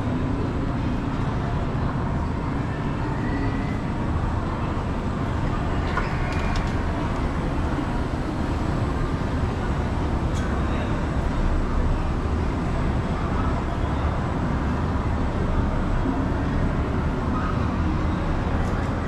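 Indoor shopping-mall ambience: a steady low rumble of background noise, with a few faint clicks partway through.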